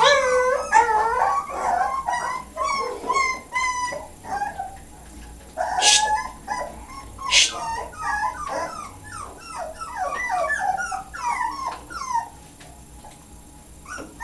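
Boxer puppy whining and whimpering: a string of short, high, sliding whines repeated about two or three times a second, with two brief hissing bursts a little past the middle.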